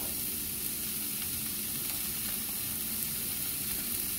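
Steady sizzle of food frying in oil: seasoned chicken breast strips and chopped vegetables cooking in frying pans.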